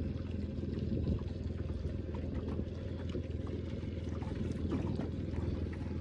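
Boat motor running at idle: a steady low rumble, with a few faint ticks over it.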